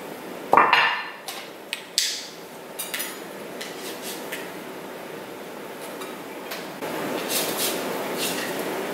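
A ceramic baking dish set down on the counter with a solid knock about half a second in, then metal kitchen tongs clicking and clinking as raw cod fillets are lifted into the dish.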